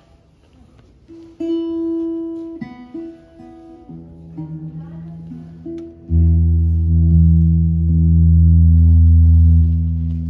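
Guitar starting a song: a few single picked notes that ring on, then from about six seconds in a louder, low chord held and ringing.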